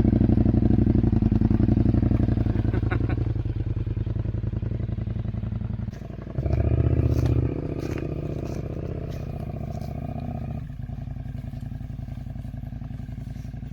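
Motorcycle engine running under load as it pulls away, loud at first and easing off. It gives a short burst of throttle about six and a half seconds in, then settles lower and steadier for the last few seconds. Scattered light clicks sound over it in the second half.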